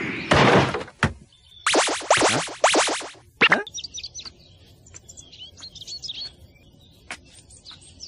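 Cartoon fight sound effects: a hit lands, followed by a rapid rattling run of strikes and one last thump. Then birds chirp over a quiet scene, with a few soft taps.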